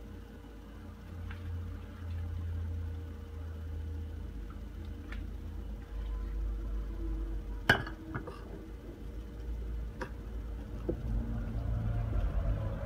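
Metal utensil stirring and scraping through a wet mash of sardines, flour and chopped cabbage in a ceramic bowl, with light clinks against the bowl and a sharper knock about two-thirds through.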